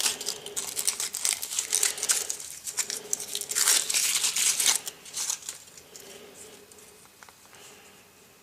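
Foil wrapper of a Kinder Surprise egg being torn open and crumpled, a dense crinkling that is loudest about four seconds in and dies away in the last few seconds.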